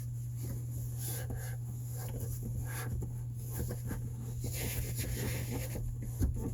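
Faint rustling, scraping and small clicks of handling, over a steady low hum, with one louder knock near the end.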